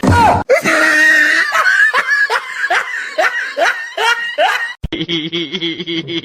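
A person laughing in a quick run of short, high-pitched bursts, each rising in pitch. The laughter cuts off suddenly almost five seconds in.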